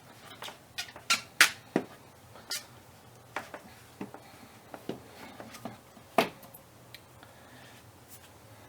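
Irregular sharp clicks and knocks of hands and tools handling a loosened rubber radiator hose and its spring clamp as the hose is worked off its fitting, the loudest about a second and a half in and again about six seconds in.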